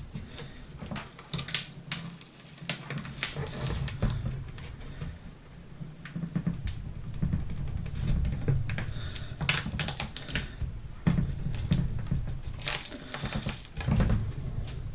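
A plastic spudger prying and scraping a cracked laptop LCD panel away from strong double-sided tape: irregular clicks, taps and scrapes of plastic against the panel.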